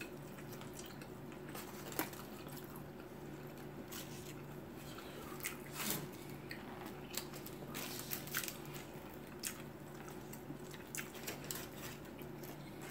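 Close-up eating sounds: biting and chewing of pastrami sandwiches, with scattered small clicks and paper-wrapper rustles as the sandwiches are handled, over a faint steady hum.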